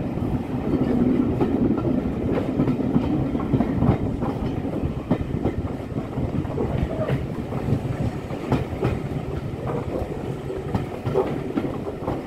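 Coaches of a steam-hauled passenger train running along the track: a steady rumble with irregular clicks of the wheels over the rail.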